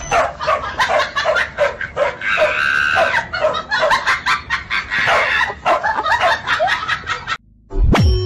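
Dogs barking and yelping rapidly and excitedly, several short yaps a second, with a longer whine a little past two seconds in. The sound stops abruptly near the end, followed by a brief low thump.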